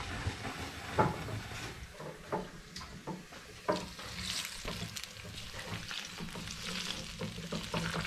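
Sea bass sizzling as it cooks over embers: a steady hiss scattered with small crackles, and a few knocks, the loudest about a second in and just before the four-second mark.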